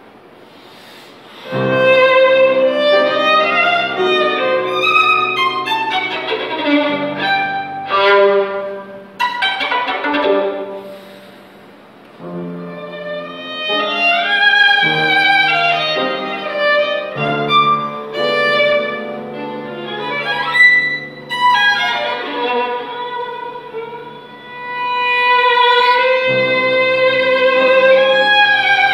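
Solo violin playing a slow, singing melody with vibrato into a microphone, over low sustained accompaniment chords. It drops back quietly twice, about midway and again a little before the end, then swells up again.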